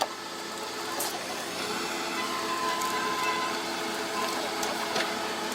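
A heavy machine's engine running steadily, with a faint steady whine near the middle and a couple of sharp clicks.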